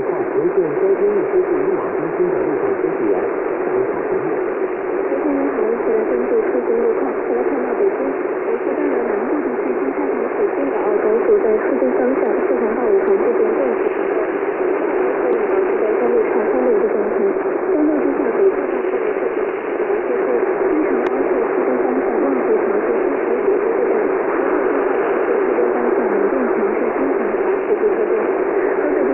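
Shortwave AM radio reception dominated by dense static and hiss, with the audio cut off above about 3 kHz. A faint, muffled signal wavers underneath the noise without clear words.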